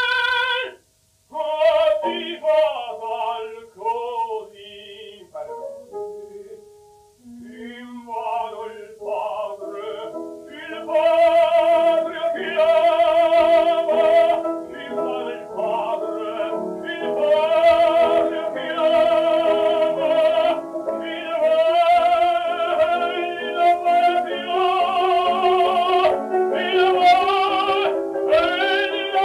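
Operatic tenor singing an aria with accompaniment: a held note breaks off about a second in, a quieter, halting passage follows, and from about nine seconds he sings on at full voice with a wide vibrato.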